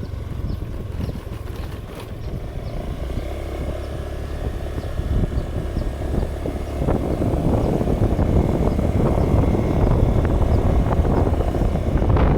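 Wind buffeting the microphone as a dense low rumble, growing louder about seven seconds in.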